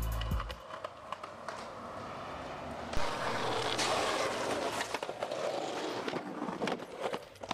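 Skateboard wheels rolling on a concrete sidewalk, with a sharp crack of the board about three seconds in and a few clacks near the end.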